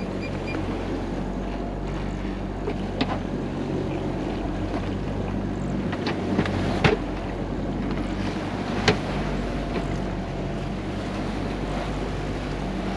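A sailboat's inboard engine running steadily under way through rough, choppy water, with the rush and slosh of water around the hull. A few sharp knocks come about three, seven and nine seconds in.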